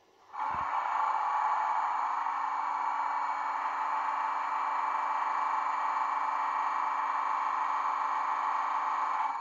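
Sound decoder of a Roco model of a DB class 218 diesel locomotive playing its air-compressor sound (function F9): a steady running sound that switches on about half a second in and stops near the end.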